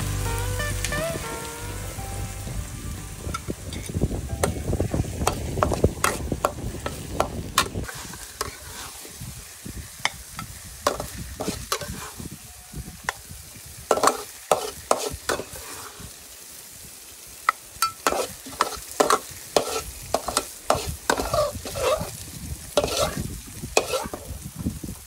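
Chopped green chilies frying and sizzling in oil in a metal wok. A metal spatula stirs and scrapes the pan, with many sharp, irregular clinks and scrapes that grow more frequent after the first few seconds.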